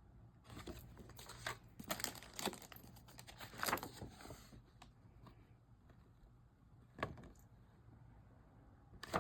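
Faint rustling and crinkling of printed journaling papers being handled and leafed through, in short irregular strokes. A single sharp tap about seven seconds in.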